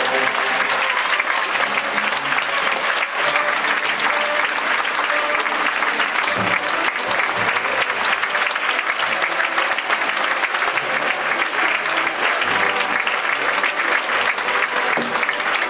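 Large theatre audience applauding for the curtain calls: dense, steady clapping from many hands.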